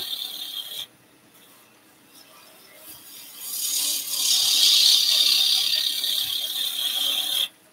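Gouge cutting spinning wood on a lathe during bulk waste removal: a hiss of shavings coming off. It runs in two passes, a short one at the start and then, after a pause of about two and a half seconds, a longer one that builds up and stops sharply near the end.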